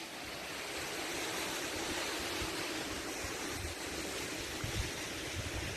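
Steady rush of a mountain stream's water at the head of a waterfall, with low wind rumble on the microphone.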